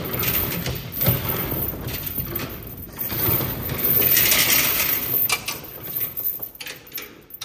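Roll-up garage door being hand-raised by its chain hoist: the steel hand chain clinks and rattles through the hoist as the metal door rolls up, loudest about four seconds in.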